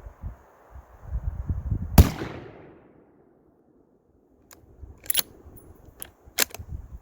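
A single shot from a Thompson Center Compass II Compact bolt-action rifle in .223/5.56 about two seconds in, its report dying away over about a second. After it come four sharp clicks, the bolt being worked to eject the case and chamber the next round.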